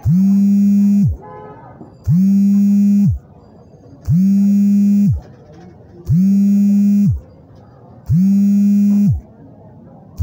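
A loud pitched tone sounding in regular pulses, about one second on and one second off, five times over. Each pulse slides quickly up to a steady pitch and slides down as it cuts off, like an electronic horn or alarm.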